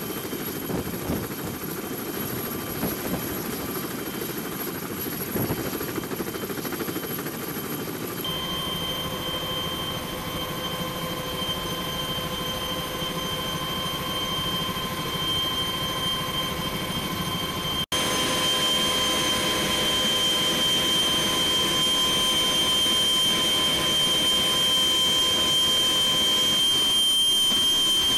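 CH-46E Sea Knight tandem-rotor helicopters running on the flight line, then the steady whine of a Sea Knight's twin turboshaft engines and transmission heard from inside the cabin in flight, with several high tones held over the rotor noise. The sound jumps louder near the end, with the cabin's rear ramp open.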